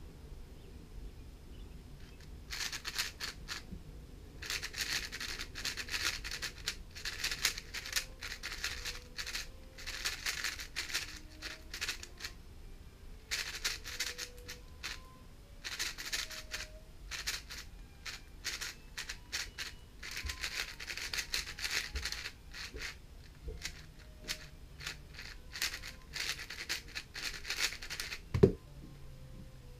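GAN 460 M magnetic 4x4 speedcube being turned fast, its plastic layers clicking in quick runs broken by short pauses, with one sharp knock near the end.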